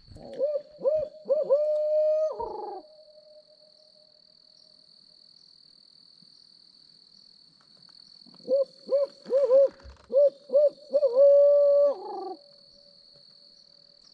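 Barred owl hoot given on an owl locator call: two loud phrases of rising-and-falling hoots, each ending in a long drawn-out note, used to make a roosted gobbler shock-gobble. A faint steady high whine runs underneath.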